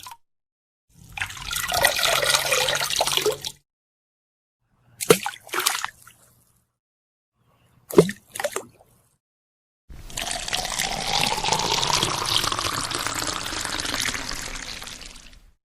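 A run of separate water sound effects with dead silence between them: a splashing pour, two pairs of short drips or splashes, then a longer pour with a tone that rises steadily.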